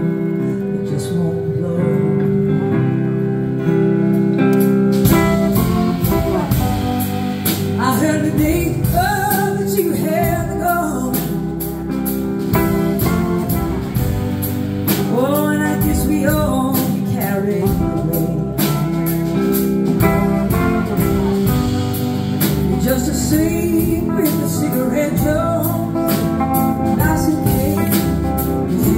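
Live blues-rock band playing: electric guitars, bass and drums, with a woman singing lead over them. The drums come in about five seconds in.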